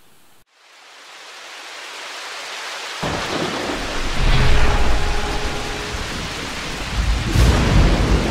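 Rain and thunder sound effect: rain hiss swells in, then rolling thunder rumbles break in about three seconds in, loudest around the middle, with a second rumble near the end.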